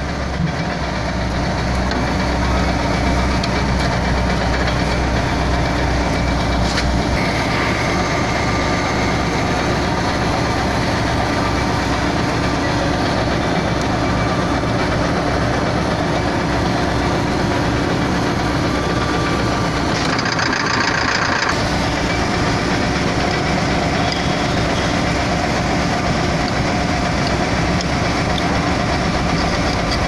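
A diesel engine running steadily, a continuous machine drone with its pitch holding level, the deepest part of the hum dropping away about seven seconds in. About twenty seconds in there is a brief higher-pitched rush of noise over it.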